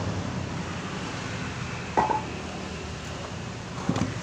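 Two sharp knocks of wooden boards being handled, about two seconds apart, over a steady low hum; the saw is not running.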